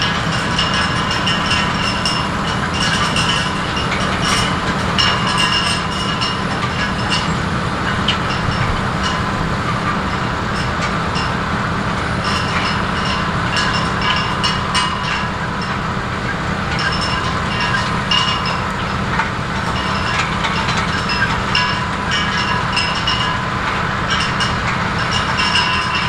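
Grimme Varitron 470 self-propelled potato harvester running while unloading into a tractor-drawn tipper: a steady engine drone under constant metallic rattling, clicking and squeaking from its conveyor webs and elevator, with potatoes knocking into the trailer.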